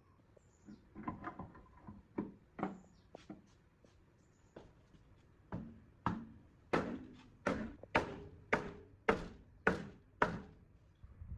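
A series of sharp knocks: a few light, irregular taps at first, then about nine evenly spaced blows, roughly one every 0.6 seconds, each ringing briefly.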